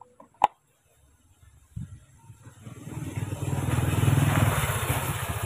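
A motor vehicle passing by: its engine comes in about two seconds in, is loudest a little past the middle, and fades toward the end. A single sharp click sounds about half a second in.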